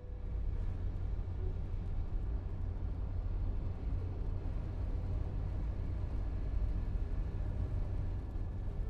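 Car driving, heard from inside the cabin: a steady low road and engine rumble.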